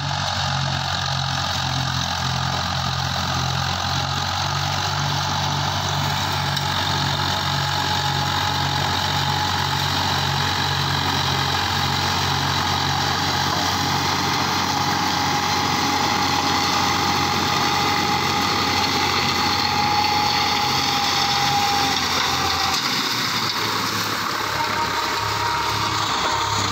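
Tractor diesel engine running steadily under load while a PTO-driven rotary mulcher shreds dry sugarcane trash, a dense chopping noise over a pulsing engine note. A thin steady whine stops about 23 seconds in, and the lowest hum drops away at the same moment.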